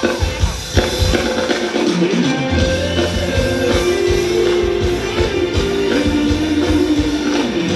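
Live band playing Thai ramwong dance music: a steady drum-kit beat under a bass line and a held, stepping melody line.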